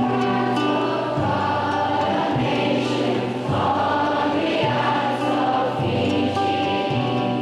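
Choir singing held, sustained chords that change about once a second.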